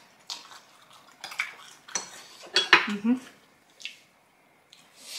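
Chopsticks clicking and scraping against bowls and takeout containers while picking up food: a handful of sharp taps spread over the first four seconds, then a quiet stretch.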